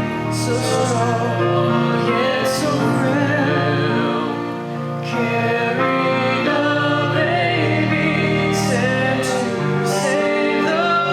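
A solo voice sings a slow Christmas song with a wavering vibrato over steady held accompaniment.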